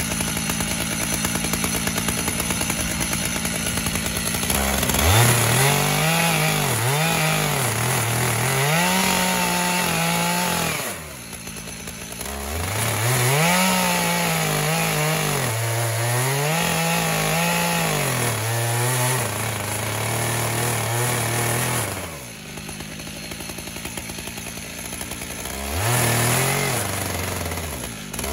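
Chainsaw on a chainsaw mill ripping lengthwise through a sycamore log. The engine is held at high revs, its pitch sagging and recovering with the load of the cut. Twice, about 11 and 22 seconds in, it eases off to a lower, quieter run and then revs back up.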